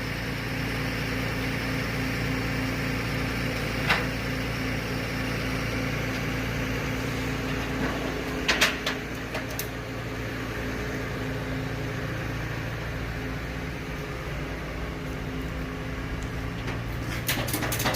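Steady drone of a running vehicle engine heard from inside the cab, holding one even pitch, with a few short clicks and rattles about four seconds in, about eight and a half seconds in, and again near the end.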